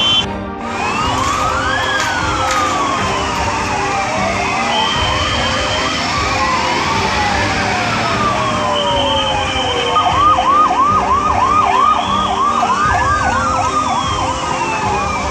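Several emergency-vehicle sirens, from ambulances and a fire engine, sound at once with slow rising and falling wails overlapping. About ten seconds in, one switches to a fast yelp for a few seconds.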